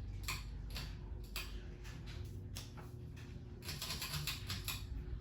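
Hunter Mayfair ceiling fan running with a steady low hum, overlaid by irregular light clicking and ticking that comes thicker for about a second near the end.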